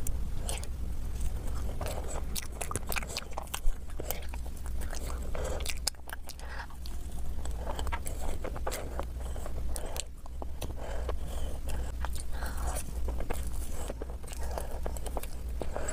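Close-miked eating sounds: biting and chewing cake and chocolate, with many small sticky mouth clicks and smacks and one sharp click about three and a half seconds in. A steady low hum runs underneath.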